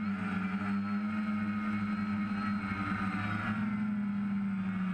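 DJI F550 hexacopter's six brushless motors and propellers in flight, a steady buzzing hum picked up by the onboard camera, with small shifts in pitch as the motors adjust.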